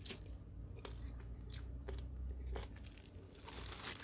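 A few faint scattered clicks, then near the end a crinkling rustle as a hand in a disposable plastic glove starts handling the wet pickled perilla leaves.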